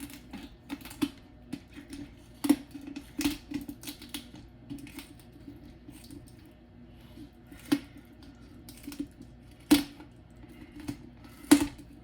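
Kitchen scissors cutting through a raw turkey along its backbone to spatchcock it: irregular snips and crunching clicks, with a few louder snaps spread through.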